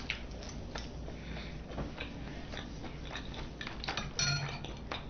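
Scattered light clicks and taps of utensils against a dish while eating sushi, with a short low vocal sound about four seconds in.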